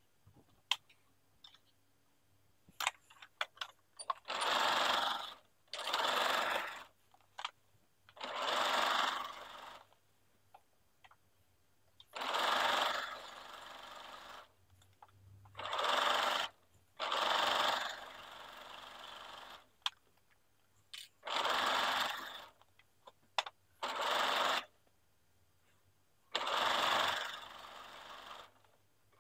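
Domestic sewing machine stitching knit beanie fabric with a zigzag stitch, running in short bursts of a second or two and stopping and starting about nine times, with small clicks of handling and repositioning the fabric in the pauses. The footage is sped up, about double speed.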